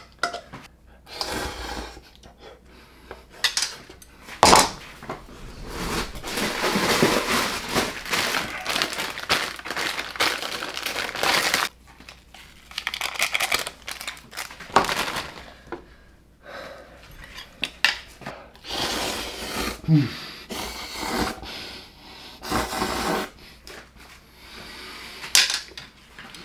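Kitchen handling of a pot and bowl: sharp knocks and clinks as noodles are tipped out of the pot into the bowl, with long stretches of scraping, rustling and crinkling as the noodles are worked and mixed.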